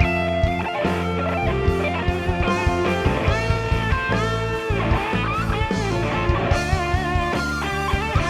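Live rock band playing an instrumental passage with no singing: an electric guitar leads with bending, wavering notes over bass and a steady drum beat.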